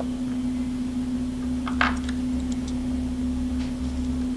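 Steady low hum with background room noise, with a brief faint sound about two seconds in.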